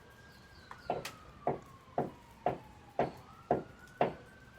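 Hammering on wood inside the house, steady blows about two a second, starting about a second in. A siren wails faintly in the background, slowly falling and then rising again.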